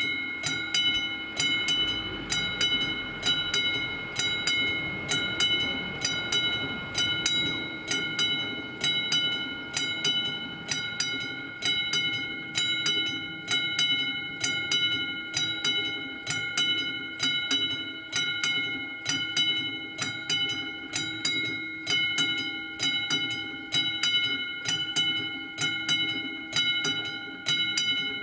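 AŽD 71 level-crossing warning bell ringing in fast, evenly spaced strokes, each stroke ringing out before the next. It is the sign that the crossing is closed for an approaching train.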